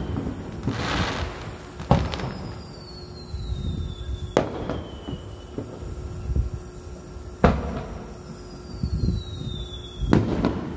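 Aerial firework shells bursting at close range: four sharp bangs about two to three seconds apart. Before two of the bangs a whistle falls in pitch, and some bursts are followed by a crackling hiss.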